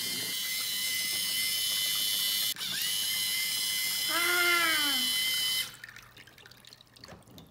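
Motor-driven LEGO Technic centrifugal water pump running, with water splashing over the model: a steady hiss with a thin high whine that cuts off suddenly about five and a half seconds in. There is a short click near the middle and a brief child's vocal sound about four seconds in.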